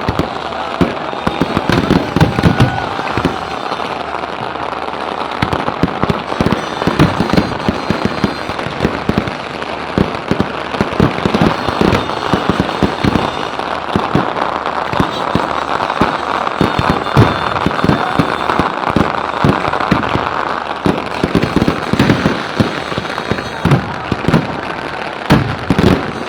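Fireworks and firecrackers going off without a break: many sharp bangs in quick, irregular succession over a steady hiss.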